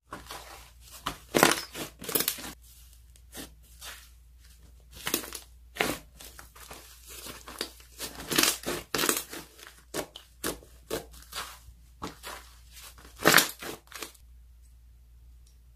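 Toffee slime being squished and stretched by hand, giving irregular sharp crackles and crinkles with a few louder snaps, stopping about 14 seconds in.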